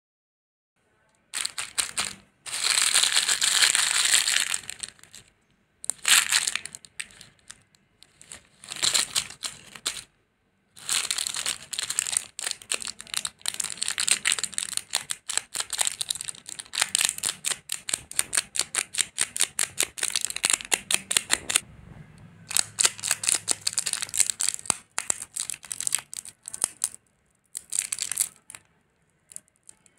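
Crinkly candy wrappers of individually wrapped jelly sweets being handled and pulled open by hand. The crackling comes in bursts with a few short pauses between them.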